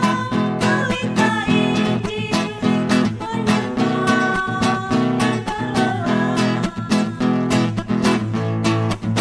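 Acoustic guitar strummed in a steady rhythm, accompanying women singing a hymn in Indonesian; the voices are strongest in the first part and give way to the guitar near the end.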